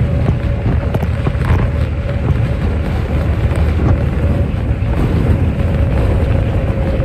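Steady low engine and road rumble heard from inside a 1990s Sydney bus at motorway speed, with a thin steady whine on top.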